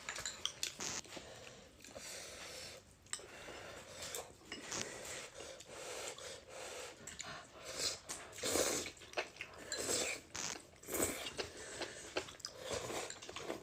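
A person chewing and biting food close to the microphone, with irregular wet mouth smacks and clicks throughout, as in a hot pot mukbang.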